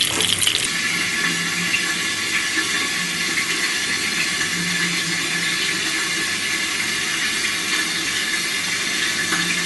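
Flour-coated pike cutlets frying in a hot frying pan: a steady sizzle, with a few crackles in the first half second.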